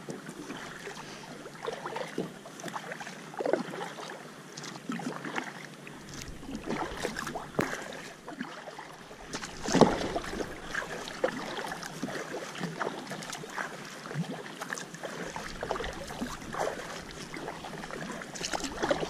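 Kayak paddle strokes: the paddle blades dipping into and splashing the lake water in an uneven rhythm, with water running off the blades. The loudest splash comes about ten seconds in.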